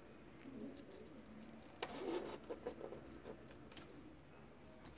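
Faint handling sounds as cheese cubes are pushed onto toothpicks and set against a foil-wrapped base: soft rustling with a few light clicks scattered through.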